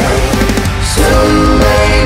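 Background rock music with guitars, vocals and a steady beat.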